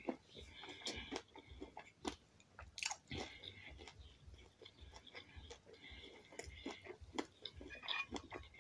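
A person chewing a mouthful of food close to the microphone: many small, irregular clicks and crunches from the mouth.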